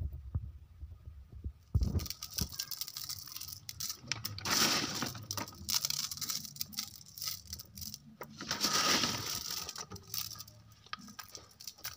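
Small river pebbles clicking and rattling against one another as they are handled, with a thump about two seconds in and two longer rustling swells.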